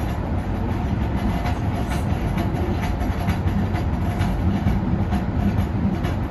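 Inside an MBTA Green Line light-rail car under way: a steady rumble of wheels on rails, with faint irregular clicks.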